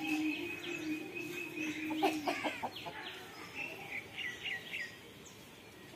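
Domestic chickens clucking, with a short burst of calls about two seconds in, followed by a few quick falling chirps. A steady hum runs underneath until about two seconds in.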